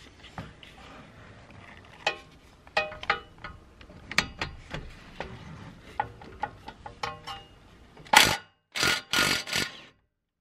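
Socket and extension clinking against metal as they are fitted to a suspension bolt, then a Ryobi cordless impact wrench hammering in a short burst and a longer one about eight seconds in, undoing the bolt.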